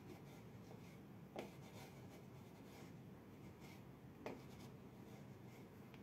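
Near silence: faint room tone with two soft clicks, about a second and a half in and again about three seconds later.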